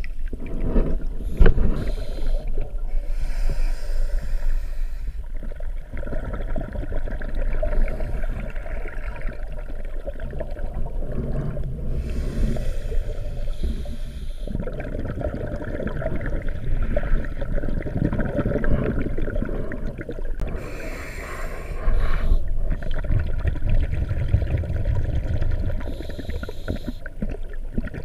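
Muffled underwater noise through a camera housing: a constant low rumble of water and handling. Louder bubbling bursts come about every nine seconds, from a diver's exhaled breath.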